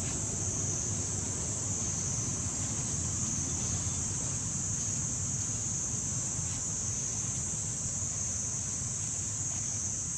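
Steady outdoor ambience: a continuous high-pitched insect drone with low wind rumble on the microphone underneath.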